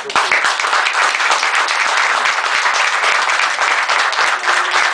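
Audience applauding, many hands clapping steadily.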